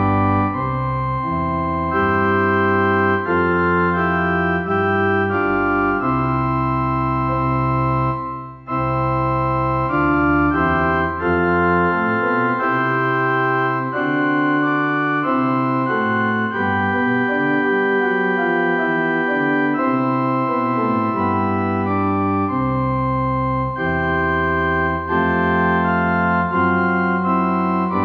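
Casio CDP-S360 digital piano sounding its Chap1Org chapel pipe organ preset, a sampled positive organ. Sustained organ chords are played with both hands over changing low notes, with a brief break about eight seconds in.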